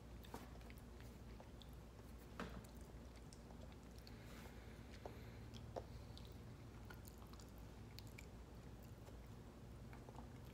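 Faint chewing of hot chicken wing flavoured Oreo cookies, with scattered small crunchy clicks, a couple slightly louder about two and a half and six seconds in.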